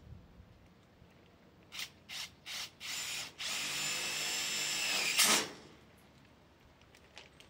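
Power drill worked by a man on a steel greenhouse frame: a few short trigger pulses, then a steady run with a whine for about a second and a half, ending in a brief, louder harsh burst.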